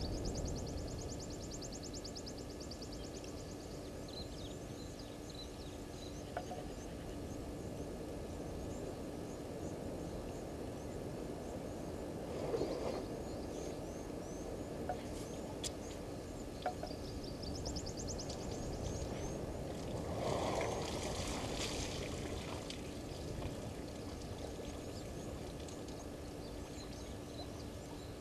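Two elephant bulls drinking at a waterhole: twice, about twelve seconds in and again near twenty seconds, a short gush of splashing water. Under it runs a steady low hum, and high rapid trills sound at the start and again about eighteen seconds in.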